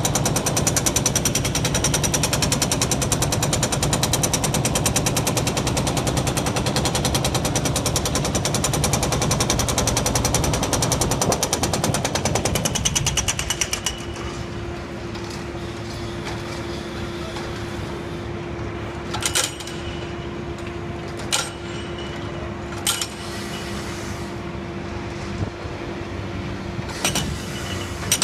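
Excavator-mounted hydraulic breaker hammering rapidly on concrete during demolition. It stops about halfway through, leaving a steady machine hum broken by a few sharp clanks, and starts hammering again at the very end.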